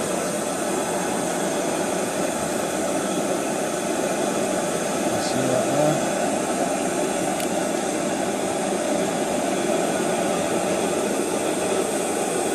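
BRS-3000T canister gas stove burning under a pot: a steady, noisy roar from the burner. It is louder than a stove of this kind should be, which the owner takes as a sign that something is wrong with this stove.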